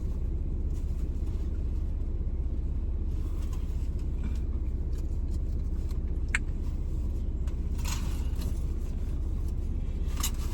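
Steady low hum of a car's idling engine heard from inside the cabin, with a single sharp click about six seconds in and brief rustling near eight seconds.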